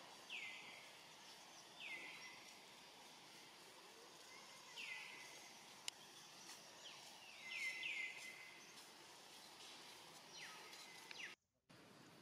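Faint, short, high animal calls, each sweeping quickly downward in pitch, about seven of them at irregular intervals, with three close together around the middle. They come over a steady outdoor background hiss, which cuts out for a moment near the end.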